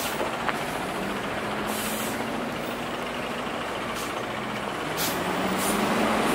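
City street traffic with buses or trucks running, a steady engine hum whose pitch rises near the end, and a few short hisses of air brakes.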